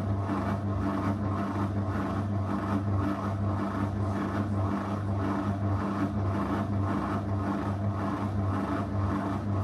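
Zanussi FL984CN front-loading washing machine running its 35° wash programme: a steady motor hum with a regular pulsing swish, about two to three beats a second, as the drum turns.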